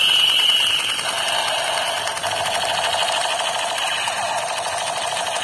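Battery-powered toy revolver's electronic firing sound effect: a continuous, fast pulsing buzz of electronic tones that opens with a short falling tone.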